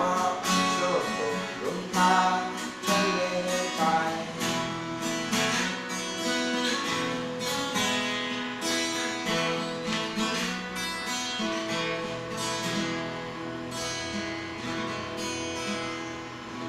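Guitar strumming and picking the closing bars of a song, getting gradually quieter toward the end.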